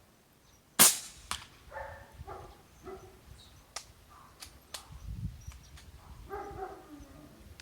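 A single shot from a Benjamin Marauder PCP air rifle, a sharp crack about a second in. A fainter crack follows half a second later, and then several light clicks. A dog makes short whining calls twice.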